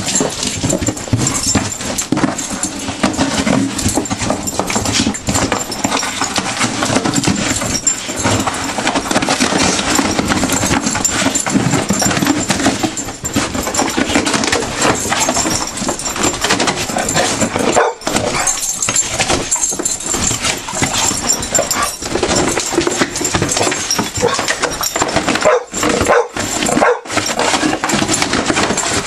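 Dogs ripping and chewing a cardboard box, with continuous tearing, crunching and scuffling, mixed with dog growls and barks.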